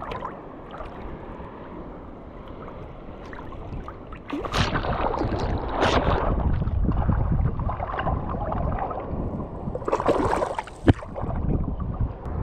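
Water lapping against a camera held at the surface, then from about four seconds in a hooked fish splashing and thrashing at the surface as it is pulled in. There are several heavy splashes and one sharp knock near the end.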